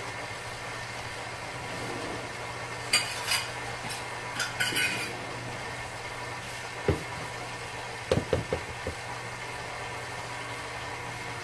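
KitchenAid Artisan stand mixer's motor running steadily, mixing the liquid yeast, oil and salt before any flour goes in. A few light clicks and dull knocks come through over the middle of it.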